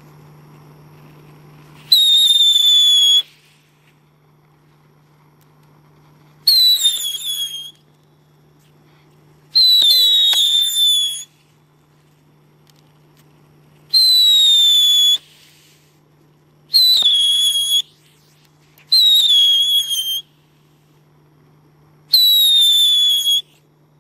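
Seven Lesli Luftpfeifer whistling fireworks go off one after another, a few seconds apart. Each gives a loud, shrill whistle of about a second that slides slightly down in pitch and stops abruptly, with no bang.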